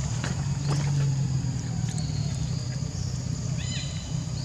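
A few short, high-pitched animal squeaks, one about a second in and a quick cluster near the end, over a steady low hum.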